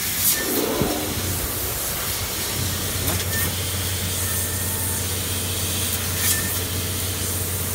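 Steady hiss and running noise from a fiber laser cutting machine. A low steady hum sets in about two and a half seconds in, with a few faint clicks.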